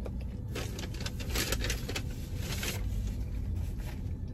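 Paper rustling and crinkling in bursts over a low steady hum inside a car.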